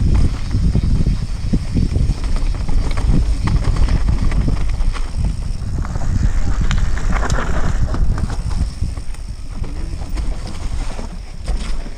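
Wind buffeting an action camera's microphone over the rumble and clattering of a mountain bike riding fast downhill over rocks and roots. The sound eases off a little near the end.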